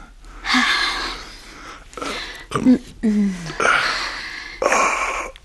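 A person breathing deeply and sighing in a series of long exhalations, with a short low falling groan about three seconds in: sighs of relief while having aching temples massaged.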